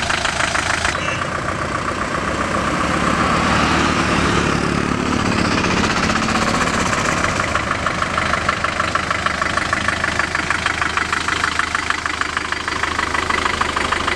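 Force Traveller ambulance's diesel engine running steadily, with a fast, even pulsing beat.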